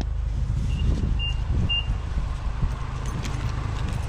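Steady low outdoor rumble with soft handling knocks, and two short high-pitched beeps about half a second apart a little over a second in.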